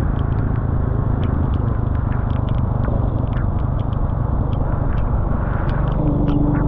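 Motorcycle riding on a wet road: a steady low rumble of engine and wind noise, with scattered light ticks. A steady hum joins in about six seconds in.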